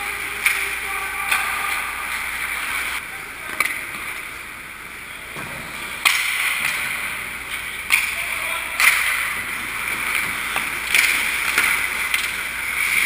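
Ice hockey skates scraping and carving across the ice in a steady hiss, broken by several sharp clacks of sticks and puck.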